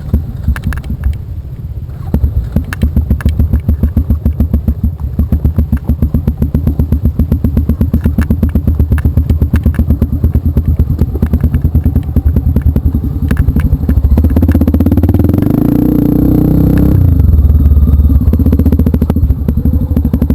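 Off-road trail motorcycle engine running at low speed, its exhaust pulsing evenly. The engine revs up about fourteen seconds in and drops back about three seconds later.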